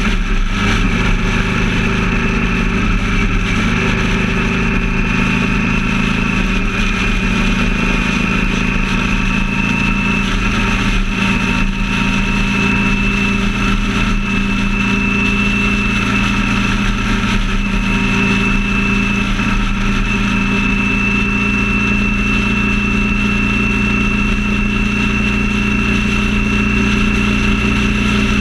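A vehicle engine running steadily at highway cruising speed, with a constant hum over road and wind noise; its pitch creeps up slightly over the first ten seconds and then holds.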